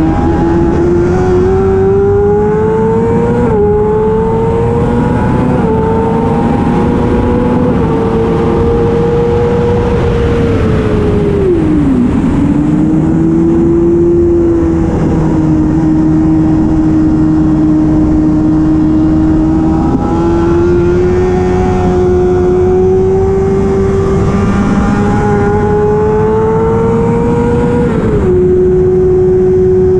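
Racing motorcycle engine at high revs, its pitch climbing as it pulls through the gears and dropping sharply at shifts, once about three and a half seconds in and again near the end. About ten seconds in the revs fall away over two seconds as the bike slows, then climb steadily again.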